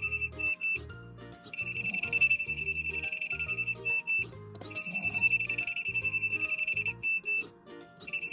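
The buzzer of a DIY bridge load-control kit sounds rapid trains of short, high beeps, three trains of about two and a half seconds with short pauses between them. Each train signals a vehicle detected by the infrared sensor and added to the count. Background music with a bass line plays underneath.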